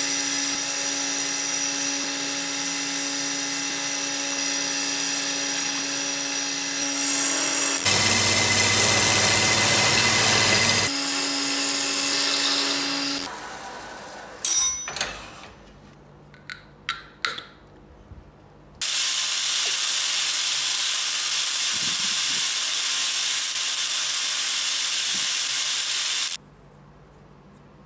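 Wood lathe running with a steady hum as a gouge cuts the spinning wooden goblet stem, louder for a few seconds in the middle of the turning. Then a sharp click and a few lighter clicks, followed by a steady hiss lasting several seconds.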